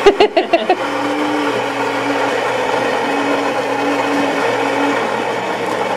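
One-touch super-automatic espresso machine starting a cafe latte cycle, its built-in grinder running steadily as it grinds the beans.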